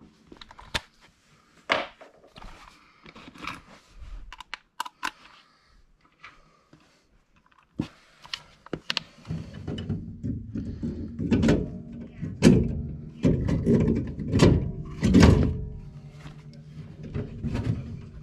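Scattered knocks and clicks of metal parts being handled, then a Milwaukee Fuel cordless drill running in several short bursts in the second half, driving screws into the gas furnace's burner manifold bracket.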